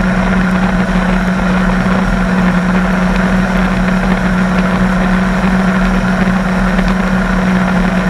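Sea-Doo jet ski engine running at steady revs, a constant hum under a rushing hiss of water and wind.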